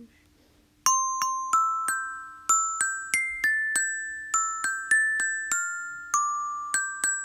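A melody of single bell-like notes on a glockenspiel-type tuned percussion instrument, about three notes a second, each struck sharply and ringing on briefly. The notes begin about a second in.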